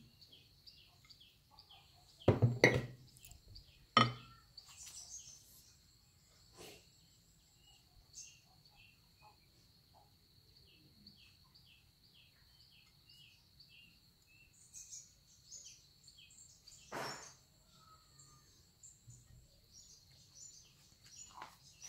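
A few hard knocks on a wooden tabletop as the meat grinder's metal parts and the glass plate are handled: a cluster a couple of seconds in, one more a second later, and another past the middle. Behind them, birds chirp in short repeated calls over a steady high-pitched whine.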